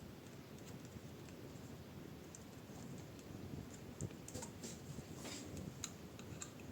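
Light, irregular plastic clicks and taps of fingers working inside an open laptop, pressing a cable into its retainer clips, with the clicks bunched in the second half.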